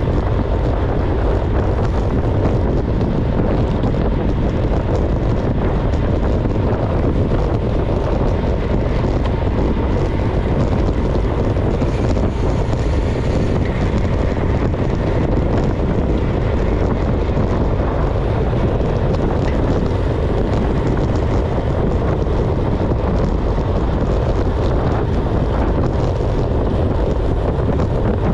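Steady wind rushing over the microphone of a camera on a road bike riding at speed.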